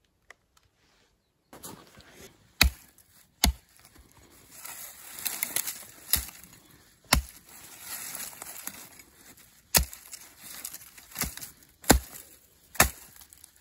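A hatchet chopping a pile of thin dead branches: about eight sharp chops at uneven intervals, with twigs crackling and rustling between them. The chopping starts about a second and a half in.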